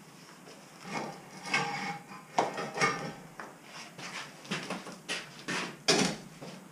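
Chunks of broken brick and stone knocking and clattering as rubble from a demolished fireplace is loaded into a wheelbarrow. The knocks come in an irregular series, and the loudest is about six seconds in.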